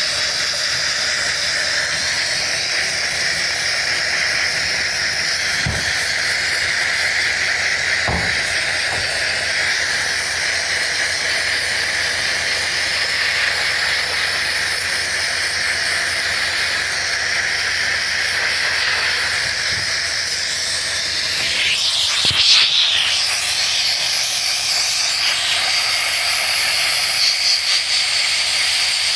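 Sandblast gun blasting abrasive grit against a rusty metal sign base: a loud, steady hiss of air and grit that does not let up.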